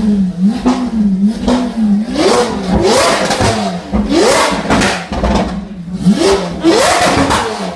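Lamborghini Aventador SV's V12 engine idling and being blipped repeatedly, with about five or six quick revs that rise sharply and drop back. Crackles and pops from the exhaust come between the revs.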